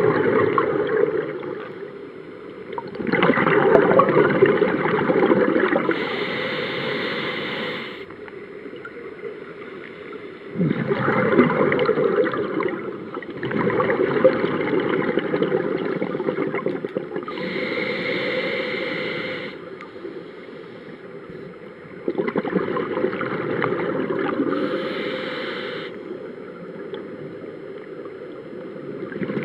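Scuba diver's breathing heard underwater through the camera housing: exhaled bubbles rumbling from the regulator and the hiss of each inhalation, in slow, repeating breath cycles.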